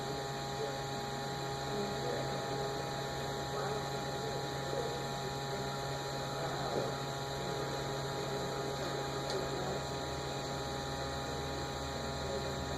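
A MakerBot Replicator 2 3D printer humming steadily while its extruder heats up before a print, a constant hum with several steady tones and faint mechanical ticking.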